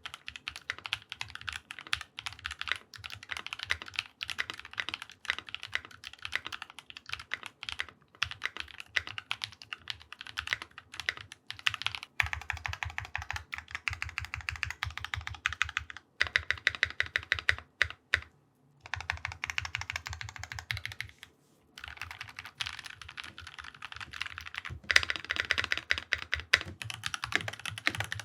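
Fast, continuous typing on a mechanical keyboard fitted with Drop DCX keycaps, a quick run of keystroke clacks. Two brief pauses come about two-thirds of the way through.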